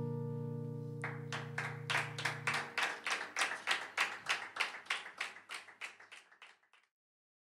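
A final acoustic guitar chord rings out and fades, and from about a second in a small audience claps, the claps distinct and evenly spaced, dying away near the end.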